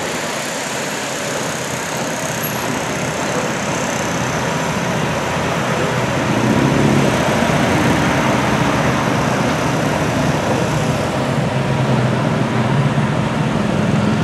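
Lamborghini Aventador LP700-4 Roadster's V12 engine running as the car drives off through traffic, growing louder about six seconds in.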